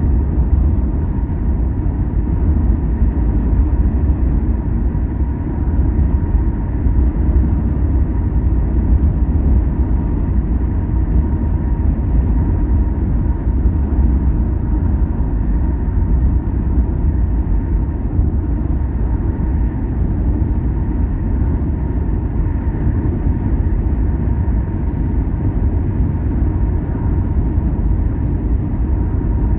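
Steady low rumble of a car driving along a road, engine and tyre noise, with a faint steady high whine.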